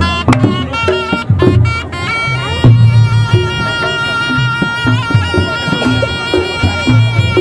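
Reog Ponorogo music: kendang drum strokes with pitched percussion, joined about two seconds in by a slompret shawm holding a long reedy note over the drumming.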